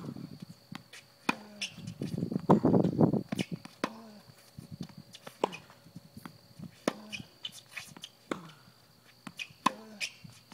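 Tennis ball being hit back and forth in a steady rally on a hard court: a sharp pop of racket on ball about every second and a half. A louder stretch of rough scuffing noise comes about two to three and a half seconds in.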